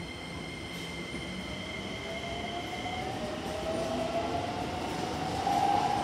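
Keikyu 2100-series electric train pulling away, its traction motor whine rising steadily in pitch as it picks up speed. A steady high whine cuts off about halfway through.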